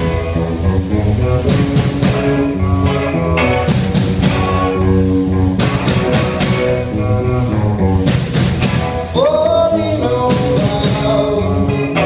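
Rock band playing, with drums, bass and guitar in a steady beat, and a note sliding upward about nine seconds in.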